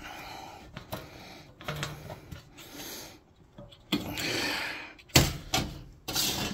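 Handling noise against a sheet-metal air handler cabinet: a run of sharp knocks and clunks with scuffing and rubbing between them, the loudest about four and five seconds in.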